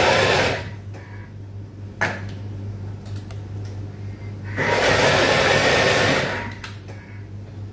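Electric blender pulsed briefly twice, a short burst at the start and a longer one of about two seconds midway, mixing pesto only a little so it stays coarse and the pine nuts keep their crunch.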